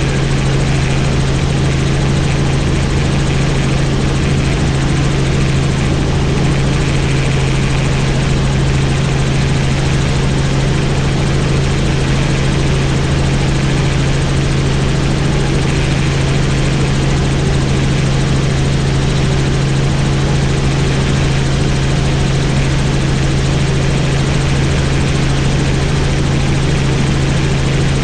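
Helicopter in flight: steady, loud rotor and turbine noise with a strong, unchanging low hum.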